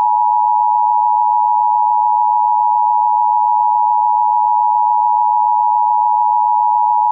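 Emergency Alert System attention signal: a loud, steady two-tone alarm held without a break.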